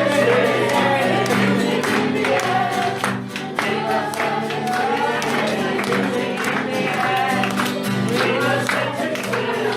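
A group of voices singing a song together over instrumental accompaniment with a steady beat.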